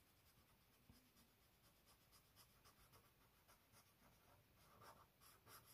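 Faint scratching of a felt-tip Sharpie marker on paper as lines are coloured in. The short strokes come closer together near the end.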